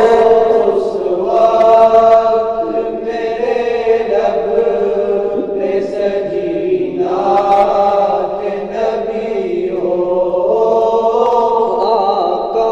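Group of student voices singing an Urdu naat, holding long, slowly shifting notes between sung lines.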